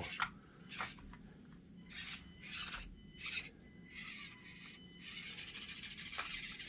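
Axial SCX24 micro RC crawler crawling over the course: short, irregular scraping and rubbing noises of its tires and chassis on the terrain, turning into a steadier scratching about five seconds in.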